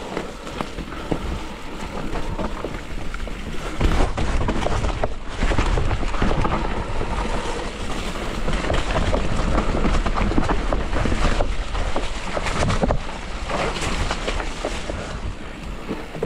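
Mountain bike riding a wet, muddy trail: wind buffeting the microphone over tyres running through wet mud and the bike rattling. It gets louder about four seconds in.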